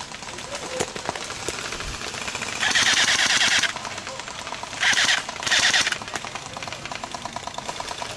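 Airsoft electric rifles firing full-auto bursts: one burst of about a second, then two short bursts about half a second apart, each a fast rattle of shots. Fainter rapid firing continues between the bursts.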